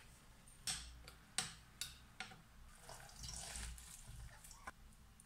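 A knife knocking against cucumbers on a wooden cutting board, about four sharp knocks in the first two seconds, then a soft wet rustle of hands tossing dressed cucumber pieces in a metal bowl.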